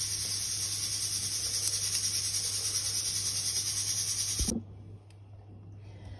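Stovetop pressure cooker hissing steadily as steam escapes its valve while it cooks meat under pressure, cut off suddenly with a short low thump about four and a half seconds in, leaving a faint hum.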